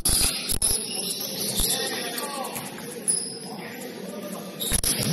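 Basketball game in play: the ball bouncing on the court a few times, with high sneaker squeaks and players' voices in the background.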